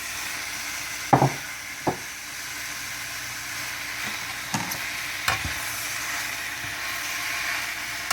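Sliced sirloin beef and onions sizzling in a hot pan as they sear, with a few sharp knocks of a utensil against the pan as they are stirred, the loudest about a second in.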